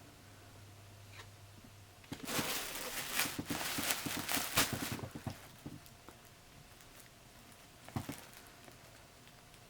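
Packaging being handled: about three seconds of crackly rustling and crinkling starting around two seconds in, then a single knock near the end.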